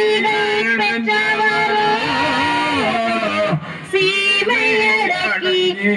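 Devotional chanting sung in long held notes that slide up and down in pitch, with a short break a little past halfway.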